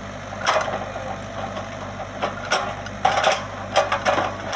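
Komatsu PC75UU excavator's diesel engine running steadily, with irregular sharp metallic clanks and knocks over it, several close together in the second half.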